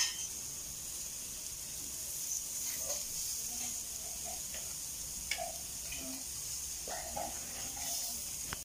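Pork pieces grilling on a wire grate over charcoal, sizzling with a steady high hiss. A short sharp knock right at the start.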